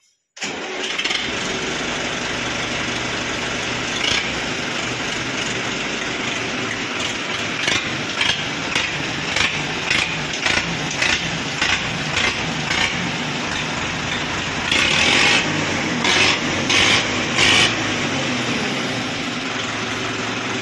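Sonalika tractor's diesel engine starting about half a second in, then running through a replacement Eicher tractor silencer, with many short throttle blips and a longer rev about three-quarters of the way through. The exhaust note is a bit loud.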